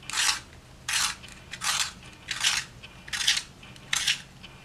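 Holbein T'Gaal handheld pencil sharpener, set to its longest-taper setting, shaving the wood of a coloured pencil as it is twisted. It gives a dry scraping rasp with each turn, about six strokes a little under a second apart.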